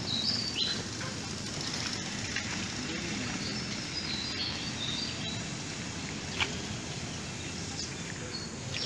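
Steady outdoor background noise with a few short, high bird chirps, and a single sharp click about six and a half seconds in.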